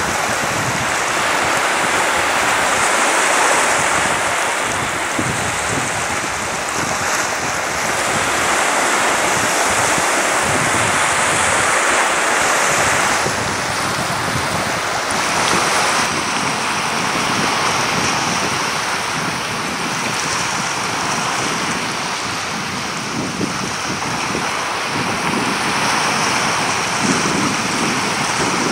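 Sea surf washing in over rocks and onto sand: a continuous rushing wash that swells and eases every few seconds, with wind buffeting the microphone underneath.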